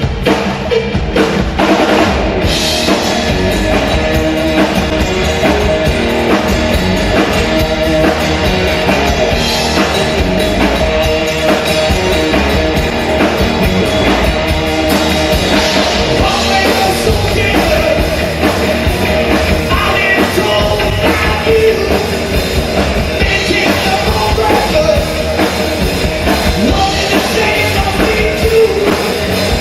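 Loud rock music: a full band with drum kit, and singing over it.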